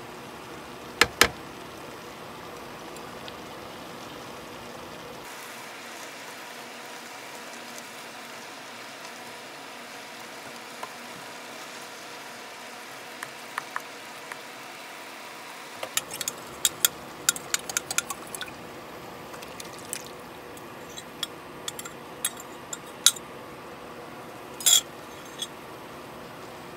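Stir-fry vegetables and tofu sizzling steadily in a frying pan as the liquid from the greens cooks off. A slotted spatula knocks against the pan twice about a second in. Later it gives a run of clicks and scrapes as the food is stirred.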